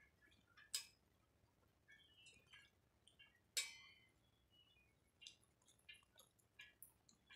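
Near silence broken by a few faint clicks and taps, with one sharper ringing clink about three and a half seconds in.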